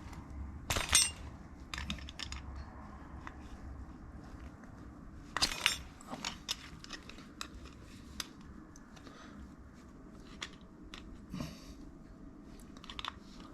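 Hands working on an ATV's handlebar and throttle parts with tools: scattered metallic clinks and knocks, the loudest about a second in and another cluster about five and a half seconds in.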